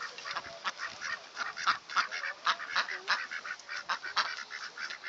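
A flock of American coots and domestic ducks calling at once: a dense chatter of many short, sharp calls overlapping without a break.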